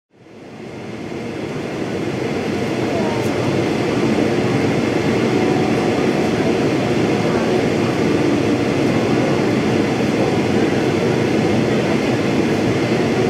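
Steady rushing cabin noise inside a Boeing 777-300ER, from airflow and its General Electric GE90-115B turbofans during the descent. It fades in over the first couple of seconds, then holds level.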